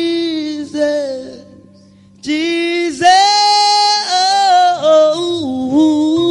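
Gospel song: a singer holds long, drawn-out notes over a steady keyboard-and-bass accompaniment. The music dips briefly about two seconds in, then the voice comes back on a long held note that steps up in pitch.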